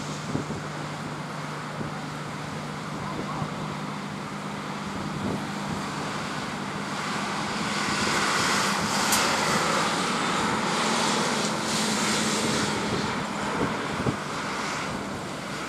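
Two U.S. Navy MH-60S Seahawk helicopters flying overhead: steady turbine and rotor noise with a constant low hum. It grows louder about seven seconds in as they come closer, then eases a little near the end.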